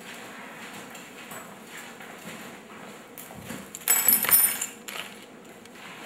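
A bunch of keys jingling briefly about four seconds in, over quiet room sound.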